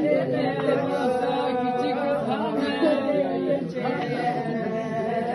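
A woman singing a funeral lament in long, drawn-out wavering phrases.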